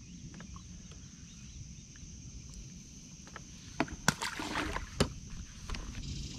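Small fishing boat on a river: a low rumble of water and hull, a few light knocks of gear against the boat and a short rush of noise about four seconds in. A steady high insect buzz runs underneath.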